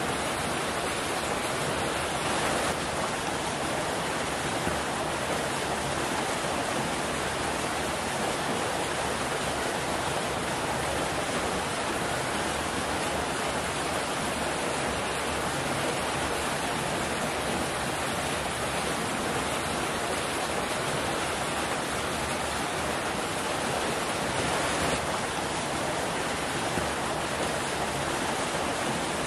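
Steady rushing and splashing of water pouring from an inflow pipe into a concrete trout raceway, its tone shifting slightly a couple of times.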